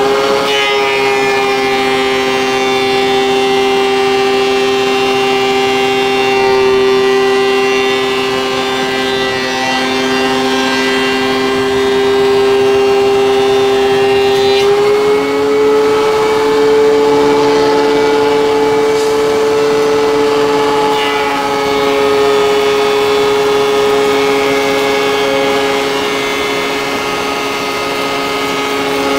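DeWalt benchtop thickness planer running with a steady whine as a wood board is fed through, taking a cut of close to 1 mm. The pitch steps up slightly about halfway through and eases back down a few seconds later.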